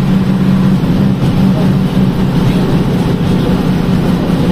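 Bus engine running steadily under way, heard from inside the cabin: a loud, even drone holding a constant pitch, over a hiss of road noise.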